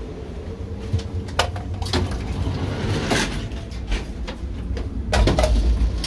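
Amtrak Superliner's sliding end door between cars being passed through, with several sharp knocks and clatters over a steady low rumble that swells near the end.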